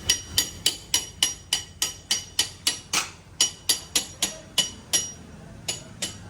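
Rapid, evenly spaced hammer blows on metal, about four a second, each with a short metallic ring; the blows pause briefly near the end, then a few more follow.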